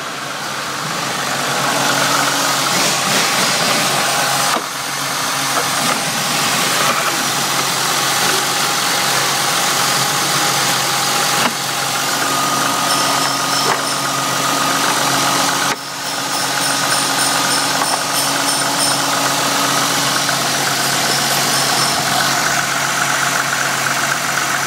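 Ford Duratec 2.5-litre 24-valve DOHC V6 (code SEA) from a Ford Mondeo Mk2, idling steadily.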